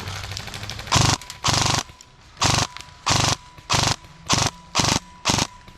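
Airsoft electric rifle, a Specna Arms E26 MK18, firing eight short full-auto bursts, each a rapid rattle of shots. A faint steady high tone sounds in the gaps between bursts.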